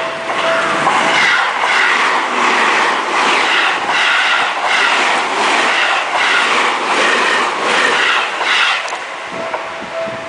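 A train passing, with a rhythmic beat repeating about twice a second that stops shortly before the end.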